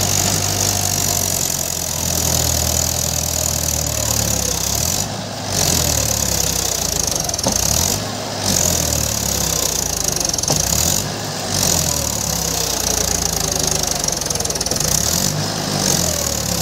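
Mahindra tractor's diesel engine running under load as it hauls a loaded trolley through deep mud, its pitch slowly rising and falling, with short drops in level about every three seconds.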